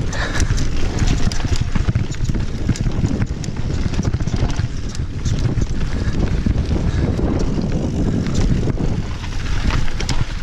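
Mountain bike riding fast down a rough dirt trail, heard from a helmet camera: wind buffeting the microphone and tyre rumble, with frequent clicks and rattles from the bike over stones and roots.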